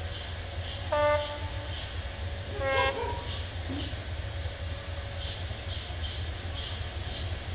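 Diesel locomotive horn sounding two short blasts, about one and three seconds in, over a steady low rumble as the D12E-class locomotive rolls slowly through a level crossing.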